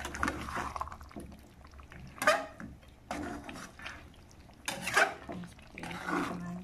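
Spatula stirring chicken and potatoes through thick soy-sauce gravy in a frying pan, with small scrapes and the wet sound of the sauce. Two short, loud sounds stand out, about two and five seconds in.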